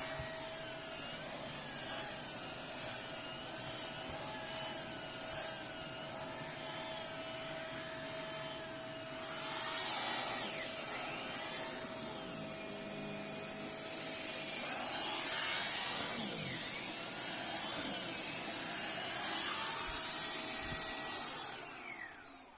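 Shark Powered Lift-Away vacuum running with its crevice tool, a steady rushing suction with a whistle that wavers in pitch as the nozzle is worked over the surface. The motor winds down near the end.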